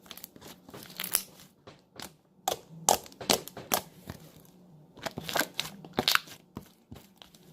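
Metallic slime that is almost drying out, poked and pressed with fingers, giving sharp clicking pops in short irregular clusters.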